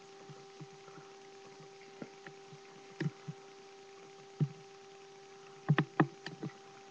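Steady low electrical hum with scattered sharp clicks and knocks, several close together near the end.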